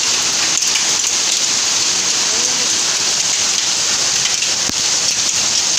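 Hail and heavy rain pelting down in a dense, steady hiss, with small ticks of hailstones hitting surfaces.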